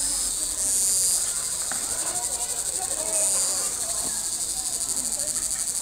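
Insects chirping in a chorus: a high, rapidly pulsing drone that swells twice, about a second in and again about three seconds in.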